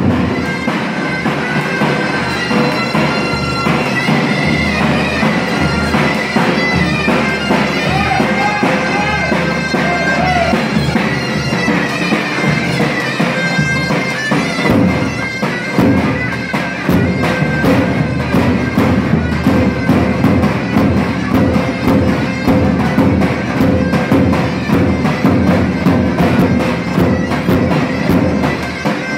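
Davul and zurna playing a dance tune: the shrill reed melody of the shawm over steady beats of the big double-headed bass drum.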